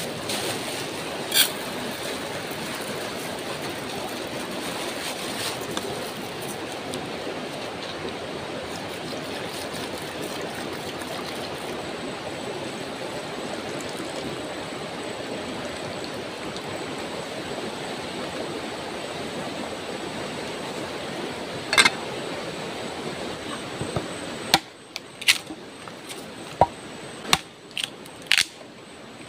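Steady rush of a river flowing close by. Near the end the background changes and a handful of sharp knocks follow: a large bush knife striking and splitting wood.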